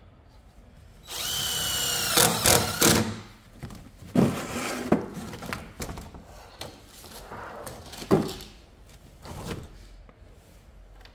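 Cordless impact driver driving screws into an aluminium mounting bracket on a solar panel frame. The motor whines steadily for about a second, then breaks into a fast rattle of impacts as the screw seats. Several shorter bursts of the driver follow later.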